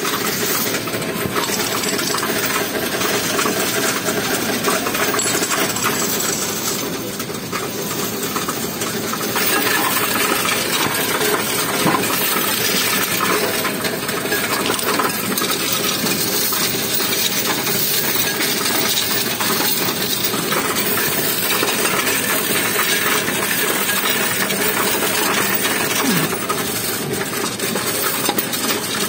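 Coins clattering and clinking without a break as they are fed from the tray into a coin-counting kiosk and run through its sorter, over the steady hum of the machine.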